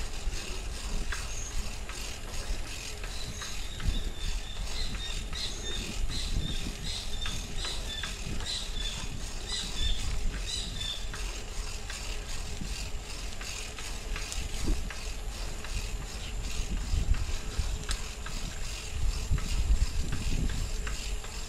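Shared bicycle riding along a paved path: wind rumbling on the microphone, with the bike's scattered rattles and clicks. A run of high, quick chirps repeats through the first half.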